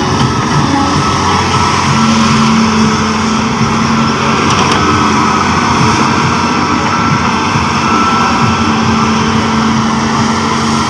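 Engine of a heavy machine running steadily at a constant pitch.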